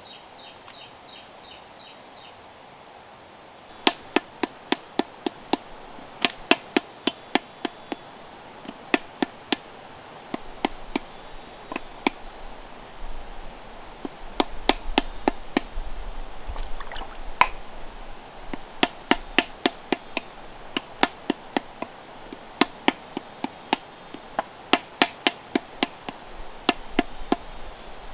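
Flat wooden paddle slapping the wall of an unfired clay pot against a stone held inside it, paddle-and-anvil shaping. Sharp slaps come in quick runs of several a second with short pauses between, starting about four seconds in.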